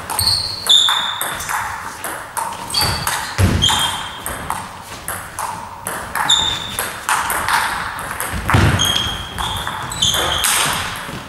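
Table tennis rally: the celluloid ball clicks repeatedly off the bats and the table, and each hit rings briefly with a high ping. Two dull, heavier thumps come in, about a third of the way in and again about three-quarters through.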